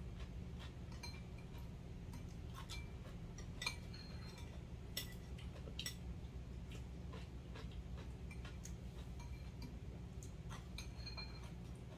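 Metal spoon and chopsticks clinking against ceramic bowls and plates while eating: scattered light clinks with a short metallic ring, the sharpest about four and five seconds in. A steady low hum runs underneath.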